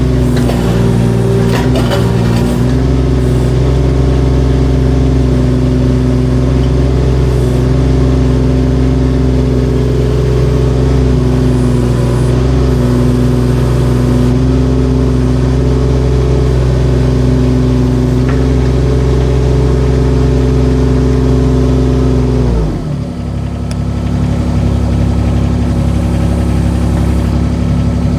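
Engine of a hydraulic digging machine running steadily at working speed, its hydraulic pump driving the bucket into rock-hard compacted soil. About 23 seconds in the engine note drops and it settles to a lower, steady speed.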